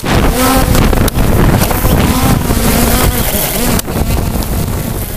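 Roman candles mounted on a DJI Phantom 2 quadcopter firing: a loud rushing hiss that starts abruptly, with sharp cracks about a second in and again later, over the drone's propellers whining and wavering in pitch.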